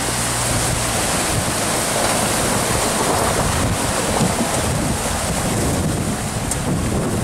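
Water splashing and churning around the wheels of a GMC Canyon pickup wading through a shallow river, mixed with wind buffeting the microphone.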